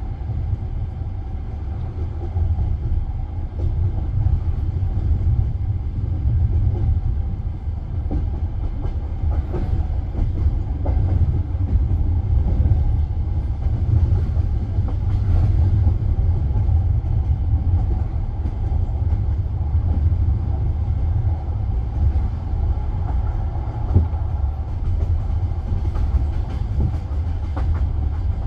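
Passenger train wheels rolling on the rails: a steady low rumble with scattered clicks of the wheels over rail joints.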